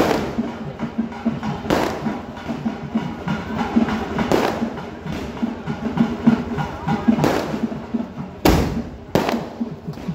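Firecrackers and aerial fireworks going off: a dense run of crackling pops with a sharp bang every second or two, the loudest two near the end.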